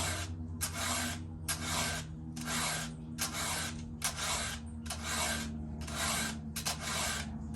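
Round chainsaw file rasping across the cutters of a new full-house saw chain in steady, even strokes, about one every 0.8 seconds.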